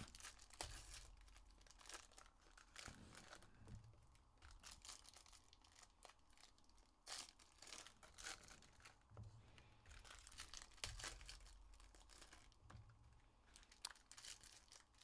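Faint, intermittent crinkling and rustling of foil trading-card pack wrappers and cards being handled.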